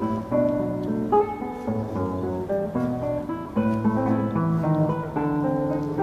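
Background music: an acoustic guitar playing plucked notes and chords.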